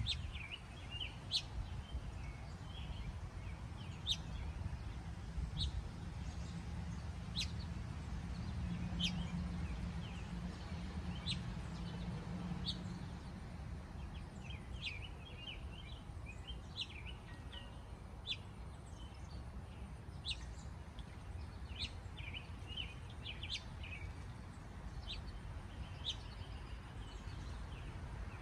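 Small birds chirping, with short, sharp chirps coming irregularly throughout, over a steady low outdoor rumble. A low drone joins in for a few seconds midway.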